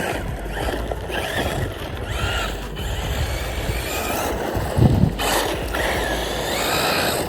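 1/8-scale brushless RC buggy on 4S driving over dirt, its motor whine rising and falling several times as the throttle goes on and off, over a noisy wash of tyres and wind.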